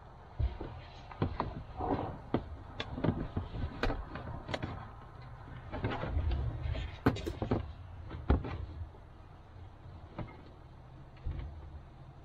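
Irregular clicks, knocks and clunks with some rustling: hands at work routing amplifier and subwoofer wiring, the loudest knocks about seven and eight and a half seconds in.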